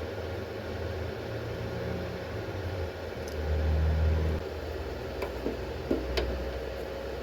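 Low steady mechanical hum that swells for about a second midway, with a few light clicks near the end.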